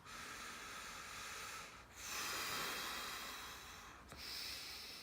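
A person breathing slowly and deeply: long airy breaths of about two seconds each, three in a row, while under deep foot pressure during a massage.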